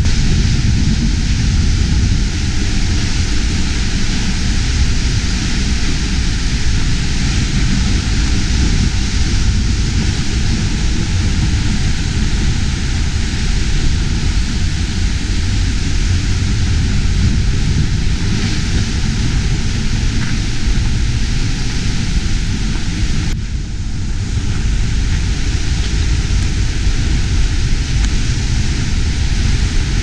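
Seljalandsfoss waterfall's falling water close up: a loud, steady rush with a heavy low rumble.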